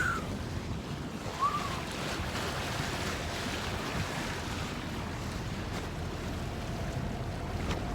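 Steady rush of wind and water around a sailing ketch under way, with wind buffeting the microphone.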